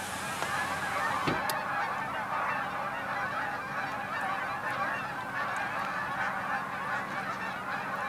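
A large flock of geese, around 300 birds, honking continuously in flight: a dense, unbroken chorus of many overlapping calls.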